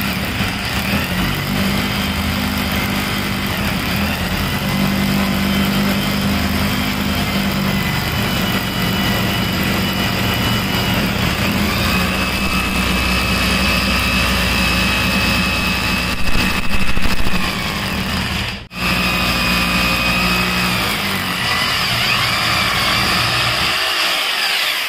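Corded hammer drill in hammer mode boring a 6 mm masonry bit into a concrete block. It runs steadily, stops for a moment about three-quarters of the way through, then runs again and stops near the end.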